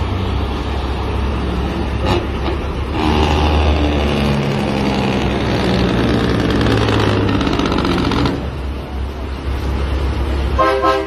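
Heavy diesel trucks idling and pulling in a slow line of traffic, a low steady engine rumble whose pitch rises and falls in the middle, with a truck horn sounding briefly near the end.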